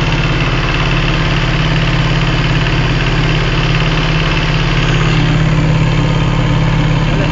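Boat engine running at a steady pace, a constant low drone with water noise over it.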